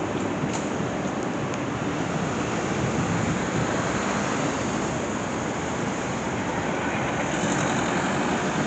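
Steady city street traffic noise: a continuous rumble and hiss of passing vehicles.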